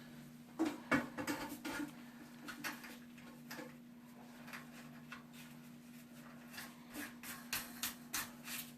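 Scattered light clicks and taps of plastic toilet-tank parts being handled and fitted while a new fill valve is installed, bunched at the start and again near the end.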